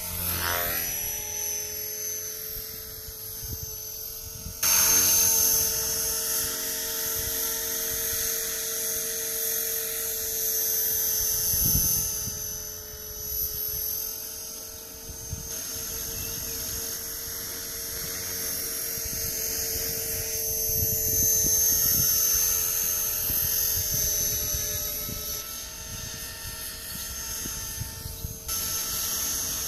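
E-flite Blade 450 3D electric RC helicopter in flight: the steady high whine of its brushless motor and rotor drive. The whine swells and fades in loudness, jumps louder and brighter about five seconds in, and its highest part drops away near the end.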